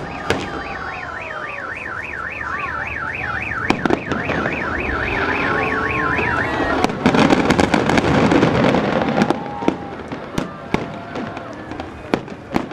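Aerial fireworks bursting with sharp bangs and crackle, loudest in a dense crackling barrage about seven to nine seconds in. For the first six and a half seconds, an electronic alarm warbles rapidly up and down over it, about four cycles a second, then stops.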